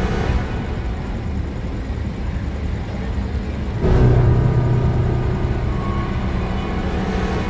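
Large ship's engines running with a steady low hum, growing louder suddenly about four seconds in.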